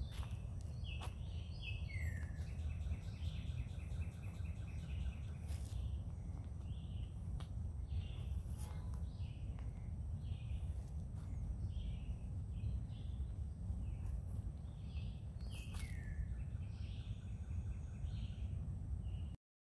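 Songbirds calling over a steady low rumble: a down-slurred note followed by a fast buzzy trill, twice, and between them a string of short repeated chirps, with a few sharp clicks. The sound cuts off suddenly near the end.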